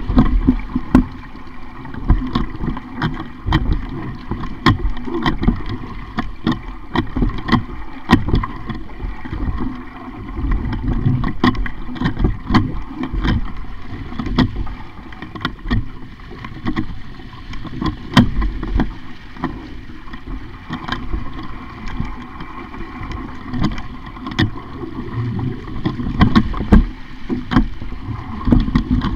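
Sailing dinghy under way: water splashing and slapping against the hull over a steady low rumble, with frequent irregular knocks and clatter.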